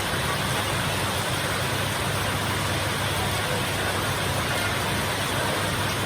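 Heavy rain falling steadily: a dense, even hiss with a low rumble beneath it and no separate drops or thunderclaps standing out.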